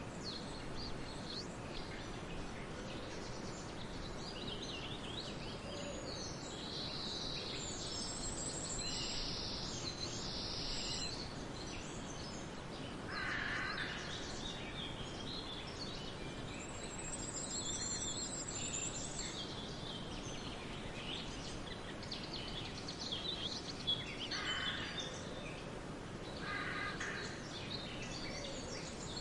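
Forest birdsong: several birds singing and calling, with high trills and chirps and a few lower calls, over a steady background hiss.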